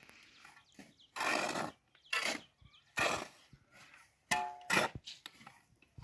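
Steel shovels scraping and digging into a pile of sand and cement as it is turned over by hand, about four separate strokes roughly a second apart; the last stroke has a brief metallic ring.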